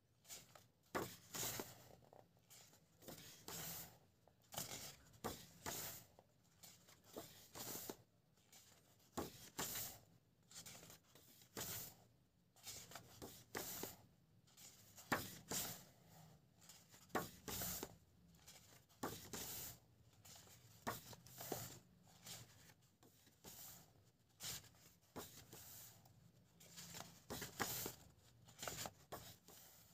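Paper pages of a thick illustration artbook being turned by hand one after another: short, faint swishes and rustles of paper, about one a second.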